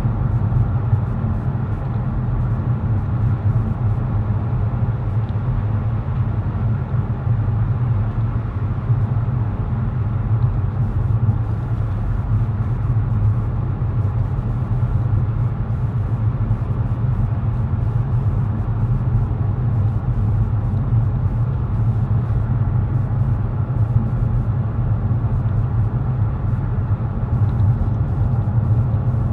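Steady low rumble of a car heard from inside its cabin, the engine running as it drives slowly along a road.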